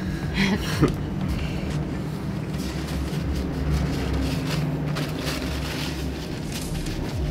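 Steady low hum with faint rustling and soft clicks.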